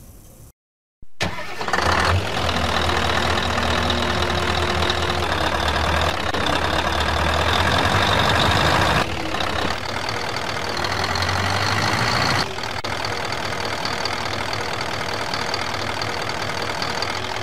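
Truck engine sound effect: it starts up about a second in after a brief silence, then runs steadily with a low hum, easing off in level about twelve seconds in.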